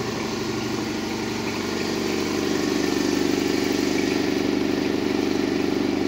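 Quincy 210 pressure-lubricated, belt-driven air compressor pump running steadily as it fills the tank, with a fast, even pulsing. It grows louder about two and a half seconds in.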